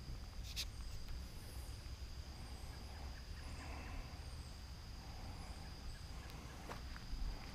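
Woodland sounds: a steady high-pitched drone, with a short animal call about three to four seconds in and a few faint clicks.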